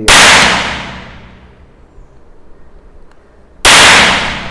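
Toy cap revolver firing ring caps: two loud, sharp bangs about three and a half seconds apart, each ringing away over roughly a second.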